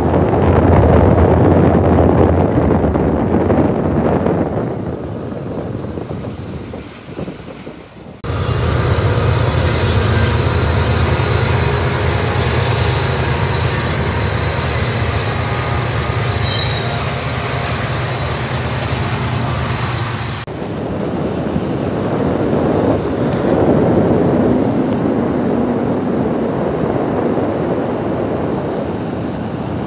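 CSX diesel freight locomotives running past, with heavy engine drone and rail noise. The sound cuts abruptly about eight seconds in and again about twenty seconds in, and the middle stretch holds a steady low engine drone from locomotives working under load.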